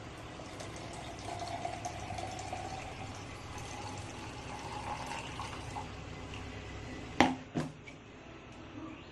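Liquid being poured into a vessel, then two sharp knocks close together near the end, the first one louder.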